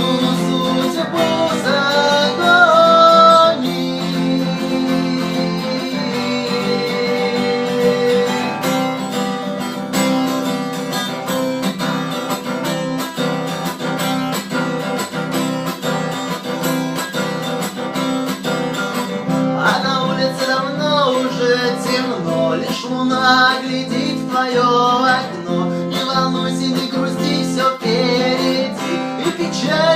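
Acoustic guitar strummed in a steady rhythm: an instrumental passage of a song, with a melody rising and falling over the chords.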